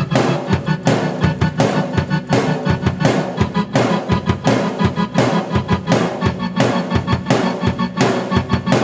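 Drum kit and keyboard played together by one performer: a steady beat with a sharp hit about every two-thirds of a second over sustained keyboard notes.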